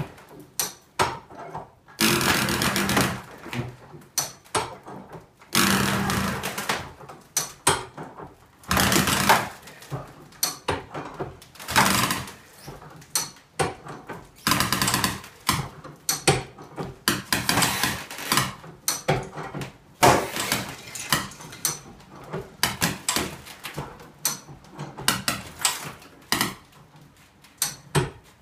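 High-lift farm jack being pumped by its handle to raise a section of floor framing. It makes repeated ratcheting strokes, each a noisy stretch about a second long, with short clicks and knocks between them. The strokes come every few seconds at first and closer together later.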